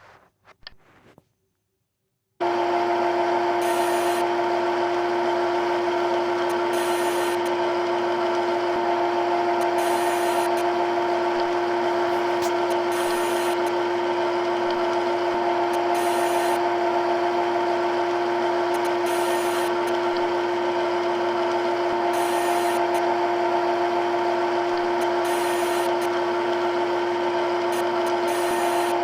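CNC machine starting abruptly about two seconds in and running with a steady whine made of several tones, with a brief higher hiss returning about every three seconds.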